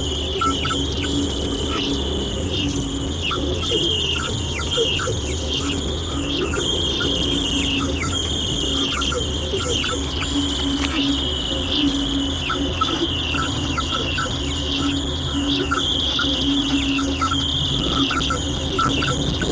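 Radio receiver putting out an unidentified signal: a low tone and a high tone that come and go, with many quick chirps and clicks over a steady low hum.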